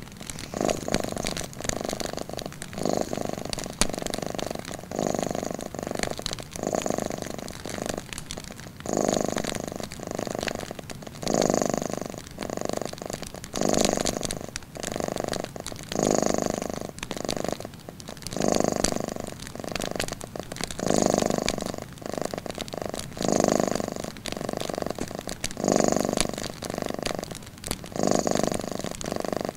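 A cat purring steadily, swelling and fading with each breath about every two seconds, over the light crackle of a wood fire.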